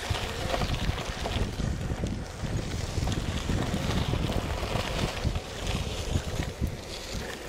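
Wind rushing and buffeting over an action camera's microphone on a moving mountain bike, with the rumble of knobby tyres rolling over gravel and dirt trail.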